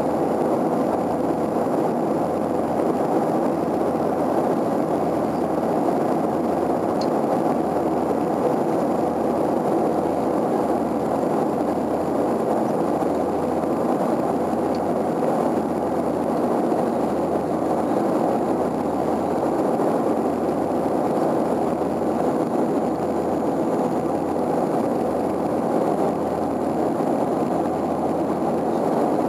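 Antonov An-24's twin Ivchenko AI-24 turboprop engines and propellers heard inside the cabin on landing approach with the gear down: a steady drone with a constant hum and a low pulsing beat underneath.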